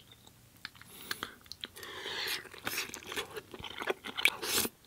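Close-up mouth sounds of a man eating pasta: wet chewing and lip smacking with many short clicks. The first half second is quiet.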